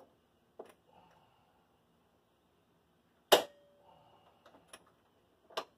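Sharp metallic clicks from hand tools working on the car's sheet-metal wheel arch, with one loud clack about three seconds in that rings briefly and another near the end.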